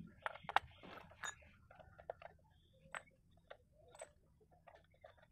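Irregular sharp metal clicks and taps of a socket wrench on the housing bolts of a brush-cutter engine as they are loosened.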